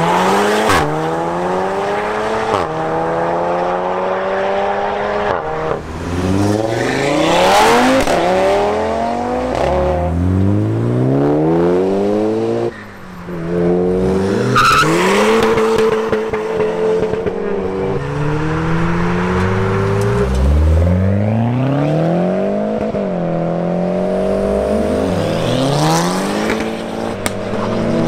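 Performance cars accelerating hard away one after another, first a Ford Fiesta, then a BMW M2. Each engine's pitch climbs steeply and drops back at every upshift.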